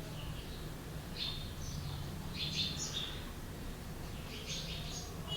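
Faint bird chirps: a few short bursts of high twittering, three or so clusters, over a steady low hum.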